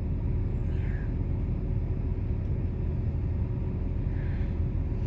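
Steady low rumble of a car running, heard from inside the cabin, with a faint steady hum.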